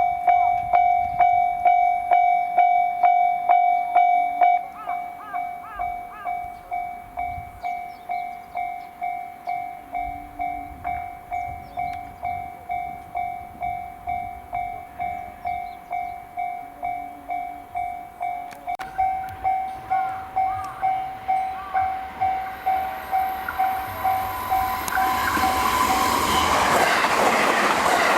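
Japanese level-crossing warning bell ringing steadily, about two strokes a second, dropping in volume a few seconds in and growing louder again later. In the last few seconds a train on the JR Hanwa Line rushes through the crossing at high speed, its wheels clattering on the rails over the bell.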